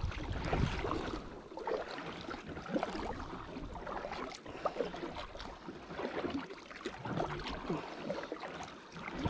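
Water sloshing and splashing close to the microphone, with many small, irregular knocks and splashes.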